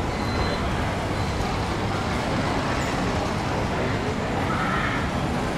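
Steady street traffic noise: a continuous low rumble of motorbikes and tuk-tuks on a busy city street.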